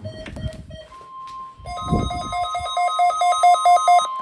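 Weather alert radio receiver beeping in rapid pulsed beeps that grow louder and faster about halfway through. Under them, the steady 1050 Hz NOAA Weather Radio warning alarm tone of a required weekly test starts about a second in. A low rumble sits beneath.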